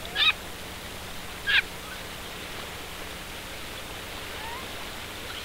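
Two short, high animal calls, one about a quarter second in and one about a second and a half in, each dropping quickly in pitch, over a steady hiss. A few faint gliding calls follow later.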